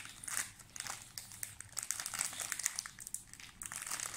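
Plastic snack wrapper crinkling as a child handles it, a run of irregular crackles.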